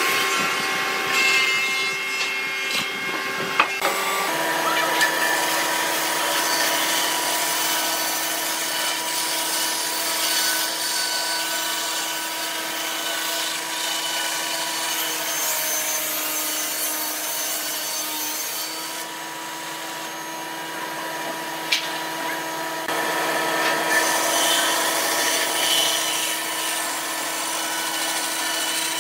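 Band saw running and cutting lengthwise through a thick block of wood, a steady motor hum under the hiss of the blade in the wood. For the first few seconds a different steady machine sound with whistling tones is heard; the band saw sound takes over about four seconds in.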